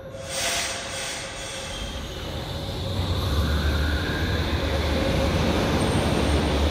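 Berlin U-Bahn train pulling out of the station: a short hiss of air shortly after the start, then the rumble of the cars and wheels grows as it gets under way, with a faint rising motor whine.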